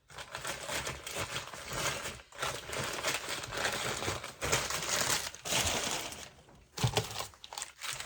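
Packing wrap crumpling and crinkling as wrapped stones are unpacked by hand, in long stretches of rustling broken by a few short pauses.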